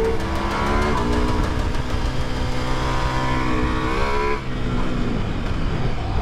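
Ducati Multistrada V4 Rally's V4 engine pulling hard through the gears: it rises in pitch, shifts up from second to third about a second in and keeps climbing, then falls away after about four seconds as the throttle closes and the bike slows.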